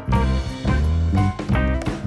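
Background music with a steady beat, bass and guitar, in a swing or jazz style.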